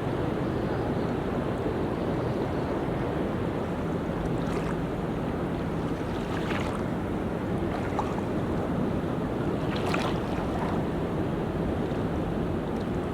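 Sea waves washing onto a beach: a steady rush of surf with a few brief brighter splashes, about four and a half, six and a half and ten seconds in.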